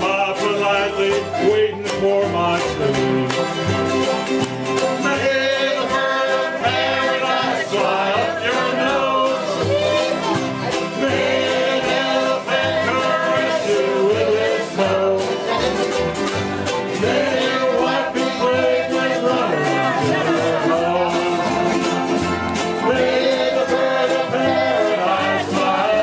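A string band of ukuleles, acoustic guitars and a banjo strumming and picking a country song with a steady beat.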